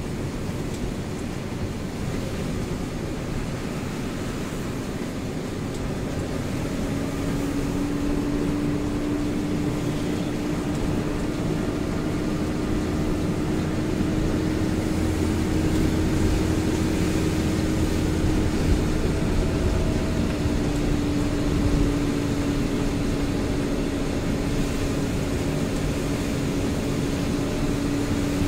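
Mitsubishi Fuso Fighter truck's diesel engine and tyres on a wet road, heard from inside the cab while driving in rain: a steady drone with road and rain hiss. A steady hum comes in about a quarter of the way through and the whole grows slowly louder as the truck picks up speed.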